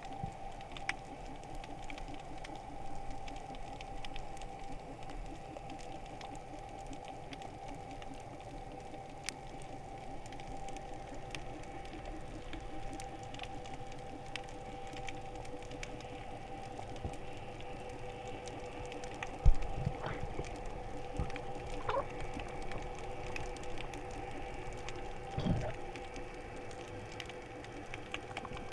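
Muffled underwater ambience heard through an action camera's waterproof housing: a steady hum with scattered faint clicks and crackles. A couple of knocks come through, the loudest about two-thirds of the way in and a smaller one near the end.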